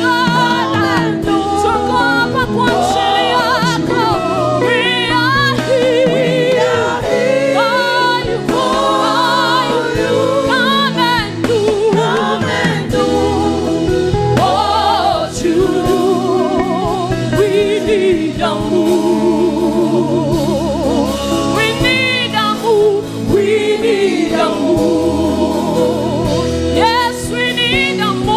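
Gospel worship song: several voices singing together with vibrato over a steady instrumental backing.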